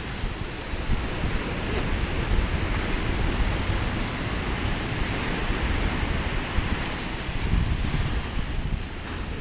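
Sea surf breaking and washing in over rocks and sand, with wind buffeting the microphone.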